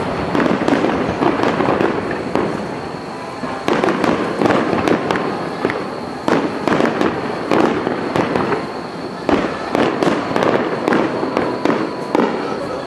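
Aerial fireworks bursting in rapid volleys: tight clusters of bangs and crackling that come in waves every couple of seconds, with many shells going off close together.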